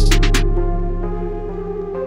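Background electronic music: a few quick drum hits at the start, then sustained synth tones fading out slowly.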